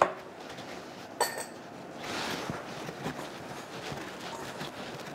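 Hands kneading crumbly egg-and-flour dough in a glass mixing bowl. A sharp knock at the start and a ringing clink against the glass about a second in are followed by soft, continuous rustling and squishing of the dough as it is pressed and gathered.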